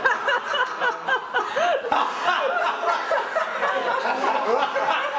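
A group of people laughing and chuckling together, several voices overlapping without a break.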